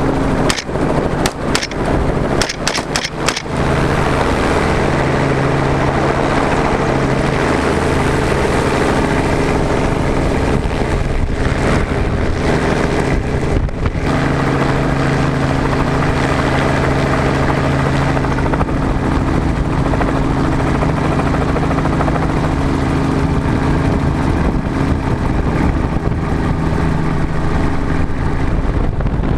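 Helicopter engine and rotor running steadily, heard from the open doorway with wind on the microphone. A quick string of sharp rifle cracks comes in the first few seconds, with a few more around the middle.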